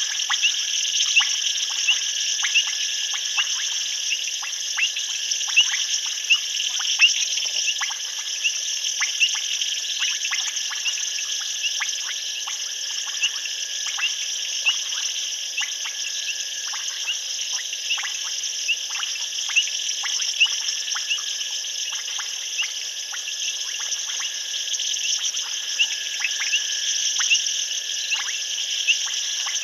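Night chorus of frogs and insects: a steady, shrill insect trill underneath many short, sharp frog clicks and chirps, coming irregularly a few times a second.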